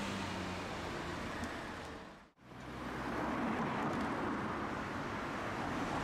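Road traffic passing close by: cars and vans running past with a steady hiss of engines and tyres. About two seconds in the sound drops out sharply for a moment, then fades back up.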